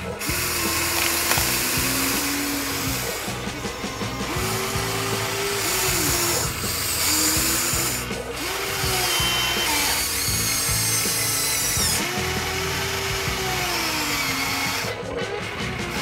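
Small electric motors of a Huina remote-control toy excavator running in spells of a second or two, their pitch rising and falling as the arm and bucket move, with gravel scraping under the bucket.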